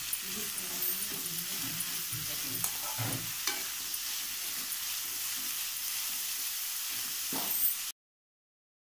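Sliced onions, dried red chillies and curry leaves sizzling in hot oil in an aluminium kadai while being stirred, with a few clinks and scrapes of the metal spoon against the pan. The sound cuts off abruptly about a second before the end.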